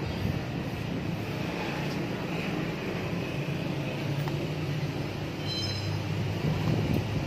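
Steady low mechanical drone with background noise, and a brief high-pitched chirp about five and a half seconds in.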